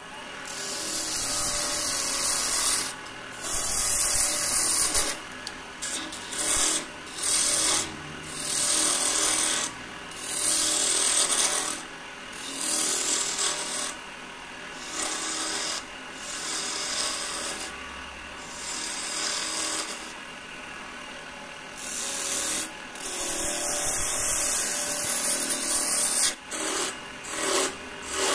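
A hand turning tool cutting hard mastic wood spinning on a wood lathe: a string of short hissing cuts, each about one to two seconds long, with brief pauses between them in which the lathe keeps running.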